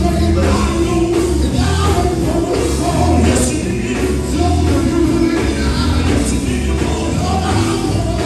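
Live gospel quartet music, loudly amplified: a male lead singer on a microphone over a full band of drums, electric bass and guitar, and keyboard, with heavy sustained bass notes.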